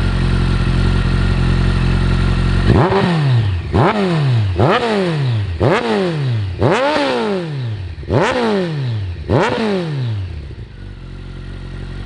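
Campagna T-Rex 14R's Kawasaki ZX-14R inline-four idling through Jardine RT5 slip-on mufflers, then revved in about seven quick throttle blips, each rising sharply and falling back, before settling back to idle near the end.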